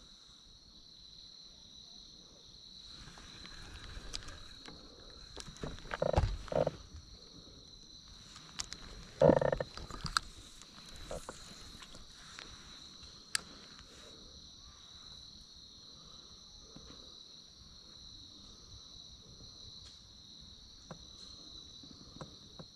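Steady high-pitched chirring of an insect chorus in the evening. A few louder knocks and clatters break in, the loudest about six and nine seconds in.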